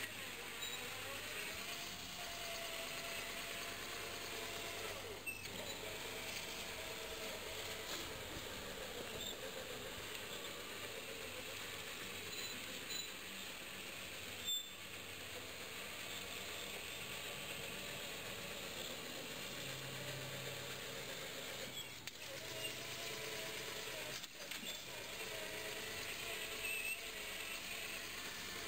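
Electric walk-behind tractor's motor and gear drive whining, its pitch wavering up and down under the load of pushing dirt, over a steady hiss, with a few sharp clicks.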